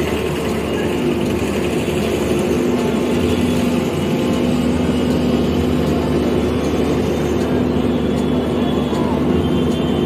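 Diesel engine of an XCMG 180D rotary drilling rig running at a steady speed, a constant mechanical hum with no change in pitch.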